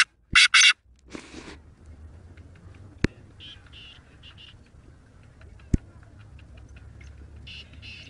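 Male black francolin calling: a series of harsh, rasping notes, loudest in the first second and a half, with fainter rasping notes in the middle and again near the end. Two sharp clicks fall between them.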